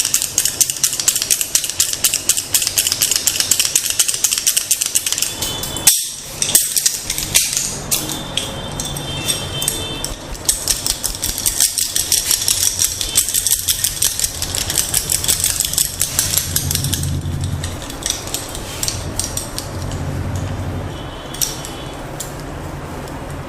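Wooden massage tools tapping rapidly on the body, quick even taps several a second, thinning out and slowing over the last few seconds.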